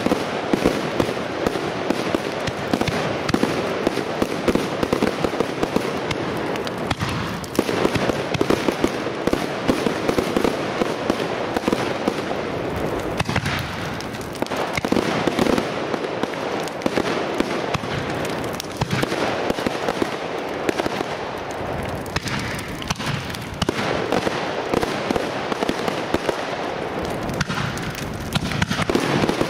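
Professional firework display firing continuously: aerial shells launching and bursting in a dense, rapid run of bangs and crackle, with a few brief lulls around the middle and near the end.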